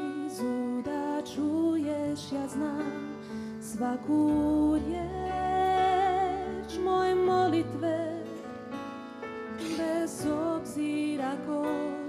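A woman singing a song through a microphone, holding long notes with vibrato, over instrumental accompaniment with sustained low notes.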